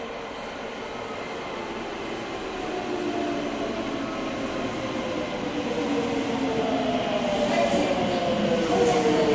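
Hokuso Railway 9100 series electric train braking into an underground station, its Toyo GTO-VVVF inverter and traction motors whining in several tones that glide downward as it slows. The sound grows louder as the train approaches.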